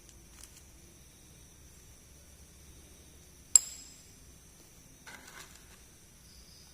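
A miniature toy piece set down with one sharp, ringing clink about three and a half seconds in, followed a little later by a brief soft rustle of handling.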